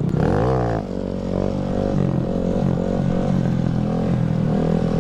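Honda Grom's 125 cc single-cylinder engine revving up sharply and dropping back in the first second, then running with the throttle rising and falling as the bike is held up on its back wheel in a wheelie.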